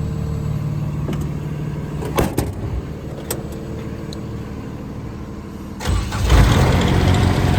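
Small Kubota diesel engine for a truck-mounted air compressor and generator being started: a couple of clicks, then it cranks and fires up about six seconds in and settles into a steady run, over a low engine hum already in the background.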